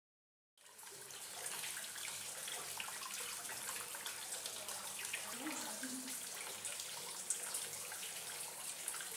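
Water splashing and lapping in a shallow tub as Baer's pochard ducklings swim and dabble in it: a steady watery hiss dotted with small ticks and splashes, starting about half a second in.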